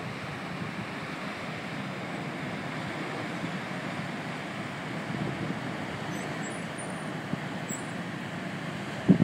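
Steady rumble of a large cruise ship passing close by, its engines and propulsion churning the water, mixed with wind noise on the microphone.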